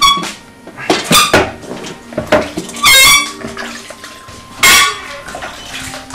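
Water splashing as hands are washed in a plastic bowl of water, with about five sharp, ringing clinks and knocks of dishes.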